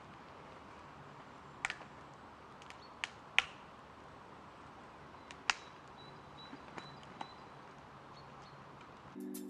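Quiet wet-forest ambience: a steady soft hiss with a few scattered sharp ticks and knocks, the loudest about three and a half and five and a half seconds in, and a faint thin high note now and then. Background music starts just before the end.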